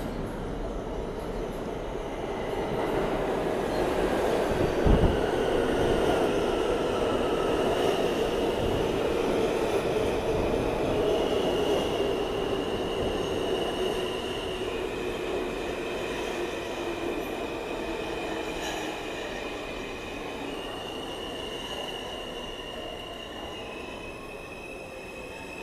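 New York City Subway train rolling in along the platform: a steady rumble of wheels and motors, with high held squealing tones from the wheels that jump between pitches every few seconds. A single thump comes about five seconds in, and the sound grows quieter over the last ten seconds.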